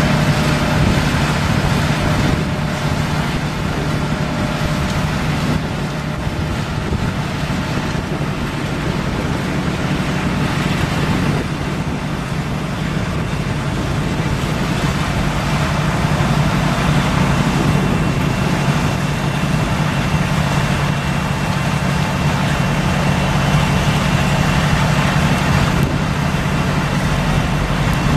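Steady drone of a Superior 48-inch Razertail truck unloader and its conveyors running, with a dump truck's diesel engine adding a deeper rumble near the end.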